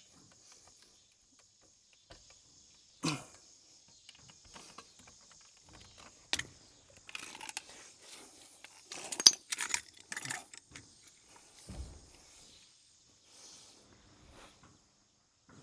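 Scattered light clicks, knocks and rattles of hand-handled metal and plastic parts at an outdoor electrical box, with a cluster of louder knocks about nine to ten seconds in.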